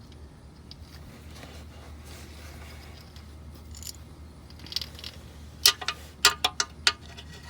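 Metal hand tools and sockets clinking together: a quick run of about six sharp clinks a little under six seconds in.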